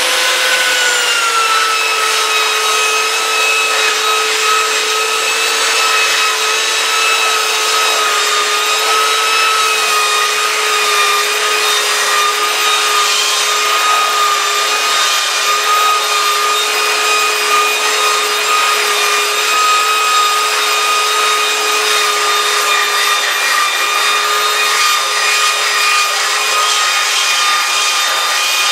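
Skil handheld belt sander with a 50-grit belt running steadily over a wooden board, sanding off dried ink: a steady motor whine over the rasp of the belt on the wood, its pitch easing down slightly in the first few seconds.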